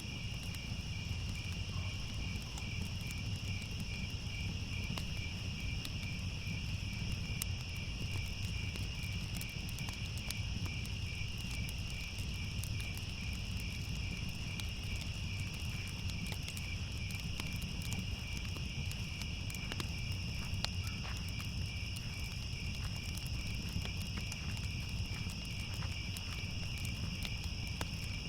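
Crickets chirping in a steady, unbroken pulsing chorus, over a low rumble with scattered faint crackles.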